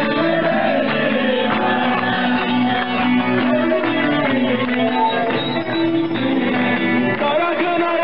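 Amplified music over a loudspeaker: singing over a plucked string instrument with a steady beat, and the crowd clapping along.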